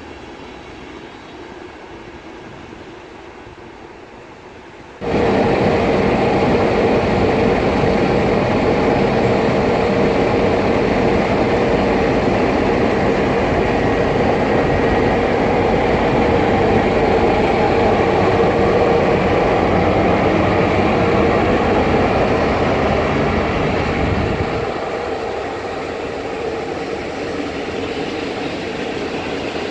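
Passenger train on an electrified line rolling past: quieter coach and wheel noise at first, then about five seconds in it is suddenly much louder as a CFR electric locomotive passes close, a steady hum over the rumble of wheels on rail. Near the end the deep rumble eases as double-deck coaches follow.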